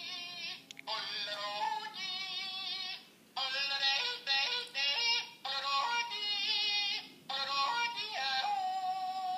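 Yodelling pickle novelty toy playing its recorded yodel through its built-in speaker: a singing voice leaping up and down in pitch, in several phrases with a short break about three seconds in.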